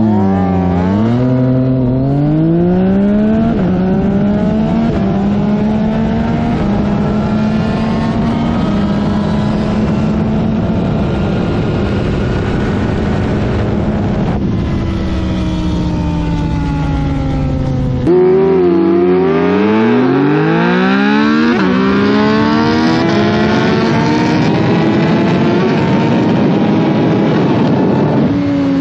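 Onboard sound of a naked sport motorcycle with a full aftermarket exhaust running at full throttle. The engine pitch climbs in quick steps, one per upshift, then holds a high speed with wind rushing past. After a cut about eighteen seconds in, another hard run through the gears climbs back to a high, sustained speed.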